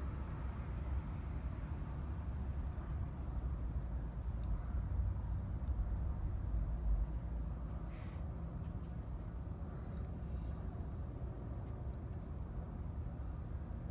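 Crickets chirping in a steady rapid pulse, over a constant low rumble of background noise.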